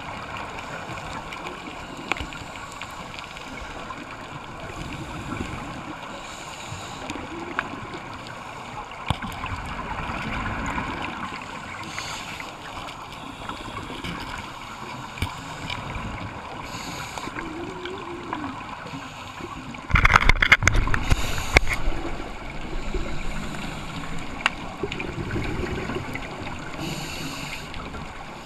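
Muffled underwater ambience of a scuba dive: a diver's regulator breathing in and out about every five seconds. About two-thirds of the way through comes a loud two-second gush of exhaled bubbles.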